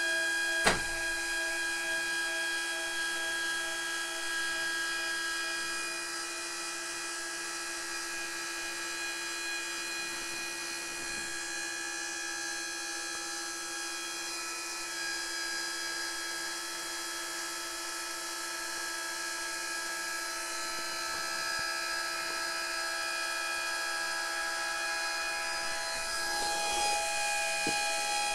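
A 12 V linear actuator's electric motor and gearbox running with a steady high whine as it raises the hinged solar panel array. A single sharp click comes about a second in.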